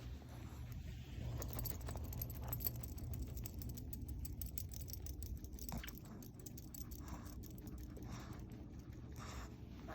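Pug puppy scratching itself: a long run of rapid scratchy clicks and rattles, with a few noisy breaths in the second half.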